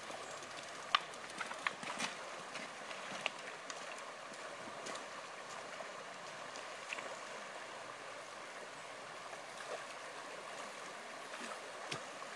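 Shallow rocky river rushing over stones in a steady wash. A few sharp splashes and knocks from wading steps through the water stand out, mostly in the first half.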